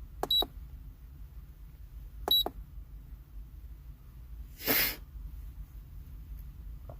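Two short electronic beeps about two seconds apart, then a brief rushing hiss a little over two seconds later, over a low steady hum.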